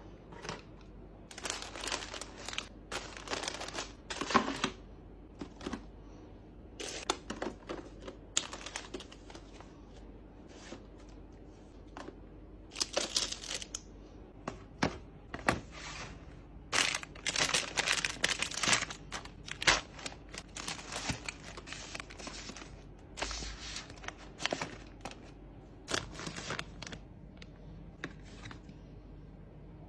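Plastic packaging crinkling and light clacks as baby toiletry bottles and packs are handled and set on the shelves of a plastic rolling cart, in irregular bursts with short pauses.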